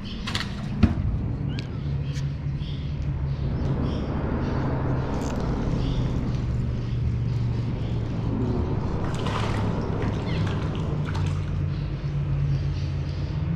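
Steady low rumble of road traffic crossing the concrete bridge overhead, with a sharp knock about a second in.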